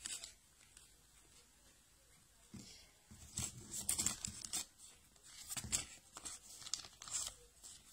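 Faint rustling and crinkling of a thin pastry sheet and the sheet beneath it as the pastry, spread with nettle filling, is lifted and rolled up by hand. A string of short rustles begins about two and a half seconds in, after a quiet start.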